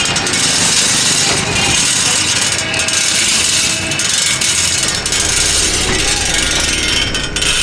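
Rattling and clicking of a pedalled cycle's chain and crank over steady street traffic noise. About five seconds in, a low engine rumble joins.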